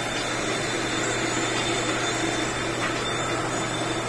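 Steady whirring hum of running machine-shop machinery, even in level with no knocks or changes.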